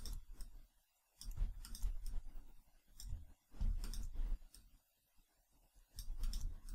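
Computer mouse clicking repeatedly in short runs of quick clicks with pauses between them, as the Photoshop clone stamp is dabbed over the skin.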